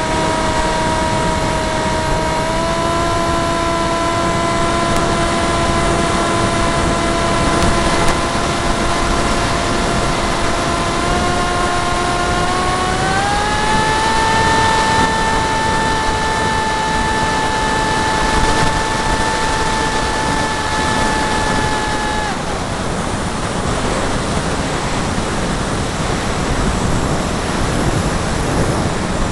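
Brushless electric motor (Turnigy 3900kv) and propeller of a Zagi flying wing whining steadily under heavy wind rush on the onboard camera's microphone. The whine steps up in pitch twice, then the motor cuts off about three quarters of the way through, leaving only the wind rush.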